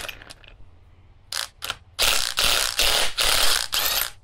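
Ryobi cordless impact wrench with a 24 mm socket hammering on an alternator's pulley nut: two short blips a little past a second in, then about two seconds of near-continuous hammering in several pulses as the nut is run off, stopping just before the end.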